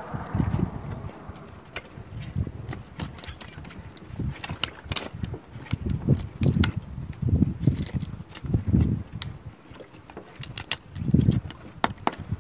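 Knife blade scraping and prying barnacles off a small sea turtle's shell: irregular sharp clicks and scrapes, over low, dull bumps from handling.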